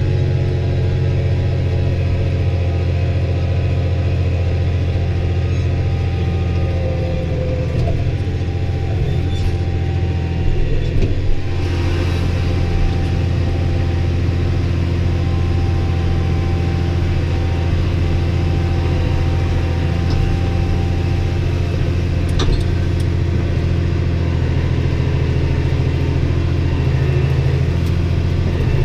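New Holland T6030 tractor's diesel engine running steadily, heard from inside the cab, with a few sharp clanks about ten seconds in and one more about twenty-two seconds in.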